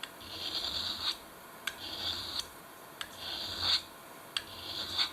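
Penknife blade drawn across a ceramic sharpening stone in four strokes, each starting with a click as the edge meets the stone and then a scraping hiss lasting under a second.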